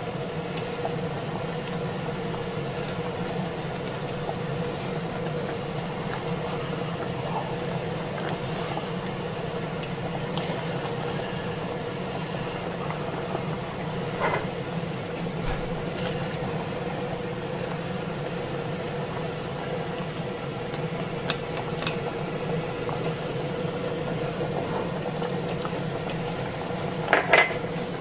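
A ladle stirring a thick stew in a large stainless steel pot, with occasional clinks against the pot, the loudest a quick pair near the end. A steady hum sits under it all.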